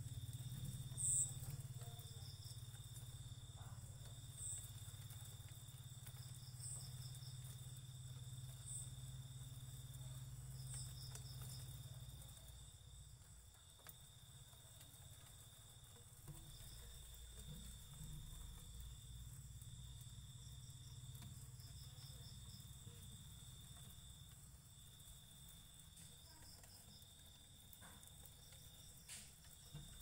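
Crickets chirping faintly: a continuous high trill, with short pulsed chirps recurring every couple of seconds, over a low rumble.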